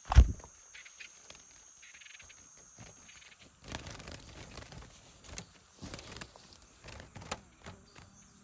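A loud thump, then a horse's hooves stepping and scuffing irregularly on the ground from about three and a half seconds in. Insects trill high and steady through the first few seconds.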